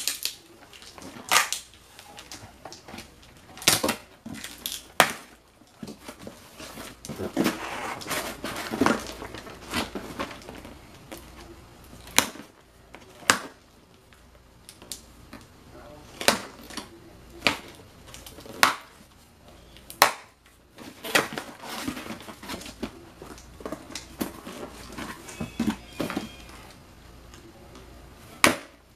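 Cardboard shipping box being opened with a pen: the packing tape is stabbed and scraped through and the flaps are pulled and torn open, with many sharp knocks and scrapes and a few longer scratchy tearing stretches.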